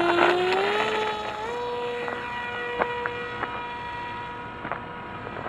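Brushless electric motor and propeller of an RC Hawk Sky glider whining steadily at full power as it climbs away. The pitch sags early, then steps up about a second and a half in and holds, with a few faint clicks over it.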